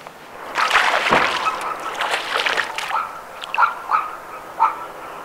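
Water splashing and sloshing as a small hooked bass thrashes at the surface, followed by a few short, high chirps.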